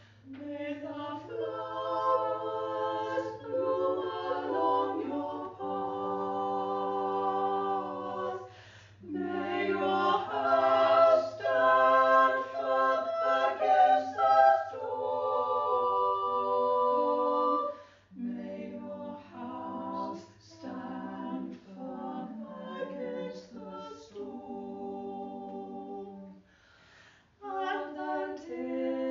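A choir singing a slow piece in long held phrases, with short pauses between phrases, over a faint steady low hum.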